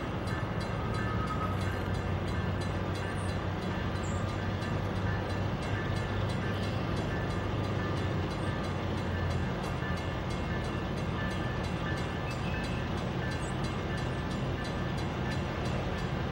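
Diesel freight locomotive engine running, unseen, giving a steady low hum over even noise.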